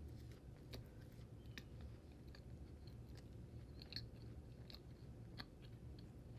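Faint chewing of food close to the microphone, with small scattered mouth clicks over a low steady hum.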